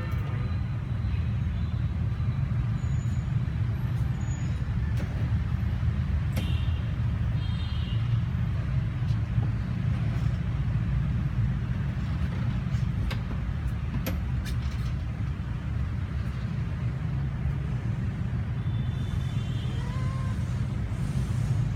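Steady low rumble of road traffic, with a few faint short high sounds over it.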